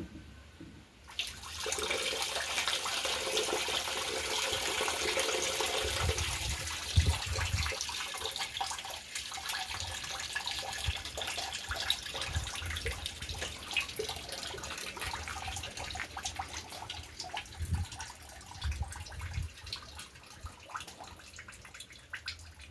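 Water running or being poured, a steady splashing rush that starts about a second in and grows fainter toward the end, with a few dull low thumps along the way.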